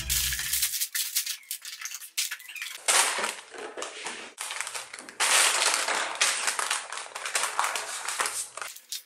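Clear plastic bags full of LEGO pieces crinkling and rustling as they are handled, in irregular bursts with short pauses between.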